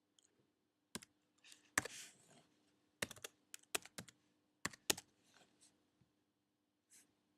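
Computer keyboard keys and clicks, tapped in irregular spurts of a few strokes at a time, over a faint steady hum.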